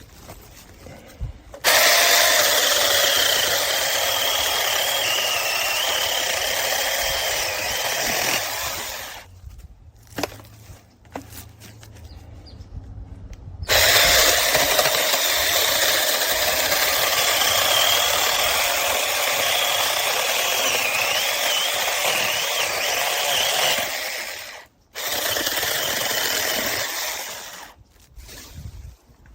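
HOPTO 6-inch cordless electric mini chainsaw running in three long bursts, a high motor whine over chain noise, its pitch wavering as it cuts through wood.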